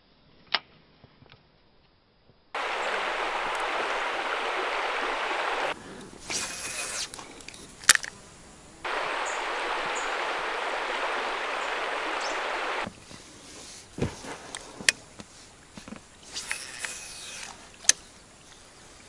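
Steady rush of flowing river water in two stretches of about three to four seconds each, starting and stopping abruptly, with quieter stretches of small sharp clicks and knocks in between.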